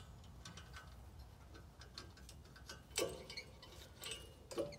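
Light metallic clicks and ticks as coil springs and steel fittings are handled on a spin barrel's base. A louder knock comes about three seconds in.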